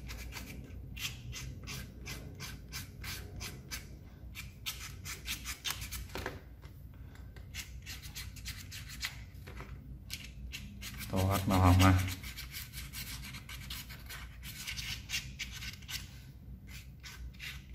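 Marker pen scratching across the paper of a folded paper crane in quick, repeated back-and-forth strokes as it colours it in. A brief voice sound stands out about eleven seconds in.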